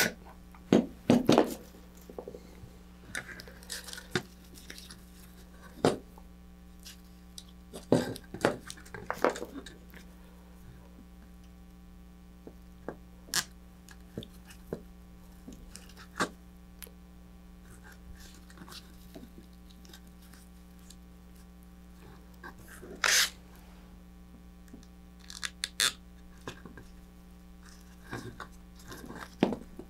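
Plastic zip-tie tails snipped off with needle-nose pliers about a second in, then scattered clicks and rustles of zip ties and small parts being handled, with one short louder rasp a little past the middle.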